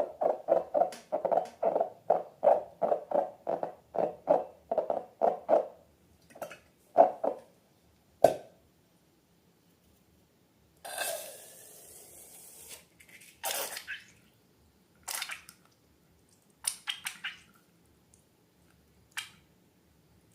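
Slime being squeezed and worked by hand: a quick run of wet squelches, about three a second, then scattered single squishes and pops, with a short hiss about eleven seconds in.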